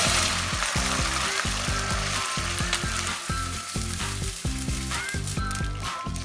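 Hot caramel in a wok sizzling hard as water is poured into it. The sizzle is loudest at the start and slowly eases off. Background music with a steady beat plays underneath.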